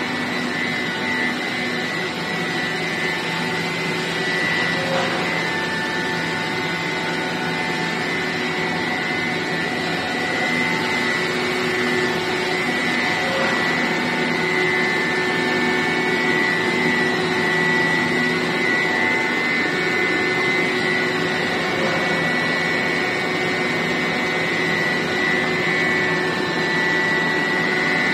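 LVT flooring production line machinery running: a steady mechanical noise with a held high whine over several lower steady hums.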